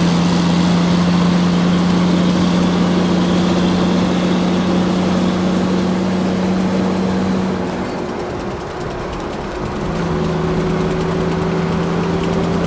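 Steady engine-like hum, as of an idling truck, that drops out for about two seconds past the middle and then comes back.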